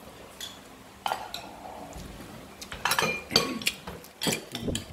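Spoons and china dishes clinking in a run of short, sharp clicks, sparse at first and busier in the second half.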